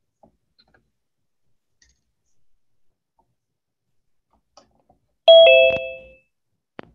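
Zoom's two-note participant-join chime, a descending ding-dong about five seconds in, signalling that someone has entered the meeting. A short click follows near the end.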